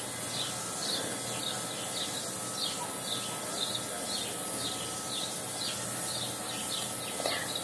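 A bird chirping over and over, short high chirps about twice a second, over a steady hiss.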